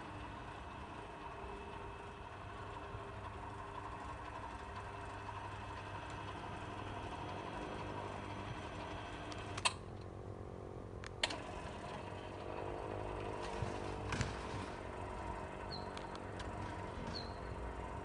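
Automatic gate drives running: the electric operators of a swinging entrance gate and a roller garage door make a faint, steady mechanical hum as the roller door rises. Two sharp clicks come about ten and eleven seconds in.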